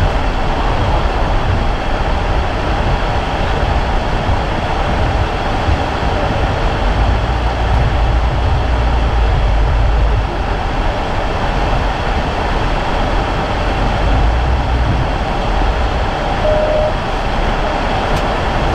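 Steady rumble and hiss of a vehicle driving through a rainstorm, with a heavy low rumble as the wind buffets the microphone.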